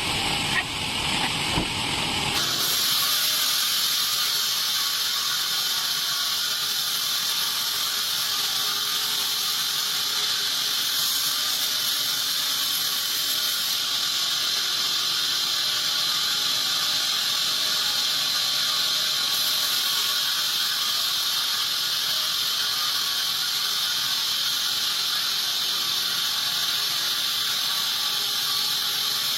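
Band sawmill ripping lengthwise through a teak log: a loud steady high-pitched hiss that starts abruptly a couple of seconds in, after a few knocks.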